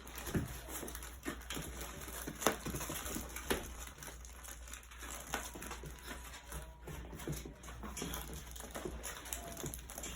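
Four-week-old puppies playing: scattered small taps, clicks and scuffles of paws and toys, with a faint short squeak or two.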